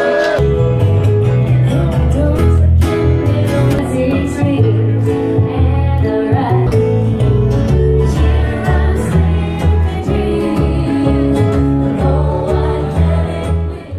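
Live band playing: a woman singing over guitar and a plucked upright bass line.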